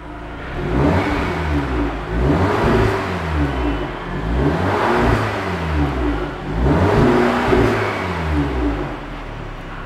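Audi S3's turbocharged 2.0-litre four-cylinder, heard through its exhaust, revved in a series of quick blips that rise and fall, then settling back to a steady idle near the end.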